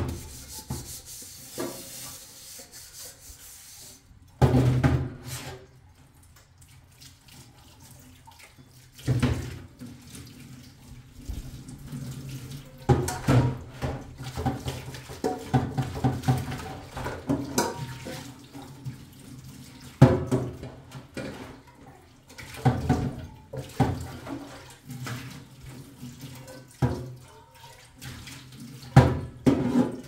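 Washing dishes by hand in a stainless steel sink: water running from a hose while a metal pot is scrubbed, with irregular clanks of pots and dishes against the steel every few seconds.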